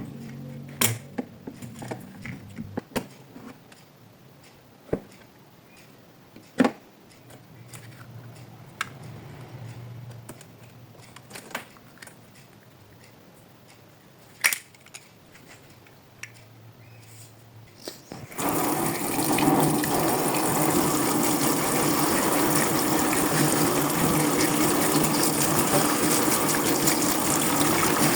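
Scattered clicks and knocks, then about two-thirds of the way in a steady rush of water starts abruptly in a washing machine.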